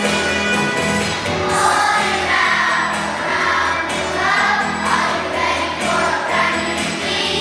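Choir singing over instrumental music, the voices coming in strongly about a second and a half in.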